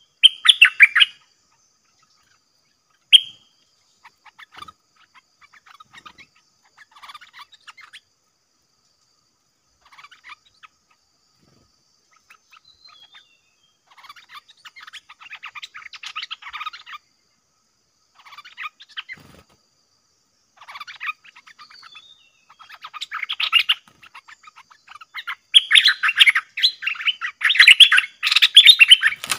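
Stripe-throated bulbuls, a caged decoy and a wild bird at its cage, calling in quick chattering bursts. There is a loud burst at the start and another about three seconds in, scattered softer calls through the middle, and dense, loud calling near the end as the two birds challenge each other.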